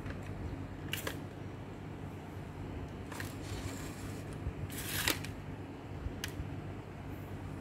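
Hands fitting a circuit board into an opened Epson EB-W01 projector's plastic chassis and handling the parts. A few short clicks and rustles, the loudest about five seconds in, over a steady low hum.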